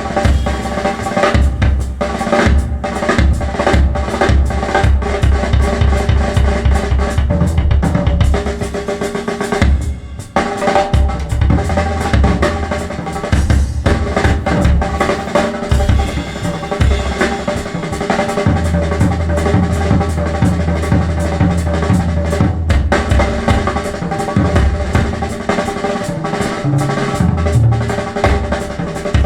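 Recorded music led by a drum kit, with kick and snare and heavy bass, played loud through Bowers & Wilkins 803 D4 floor-standing loudspeakers driven by a Marantz Model 10 amplifier. The music drops away briefly about ten seconds in.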